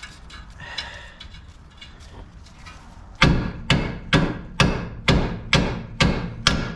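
Hammer blows on a seized car suspension part that won't come loose. There is light clatter first, then about eight sharp, ringing strikes at a steady pace of roughly two a second, starting about three seconds in.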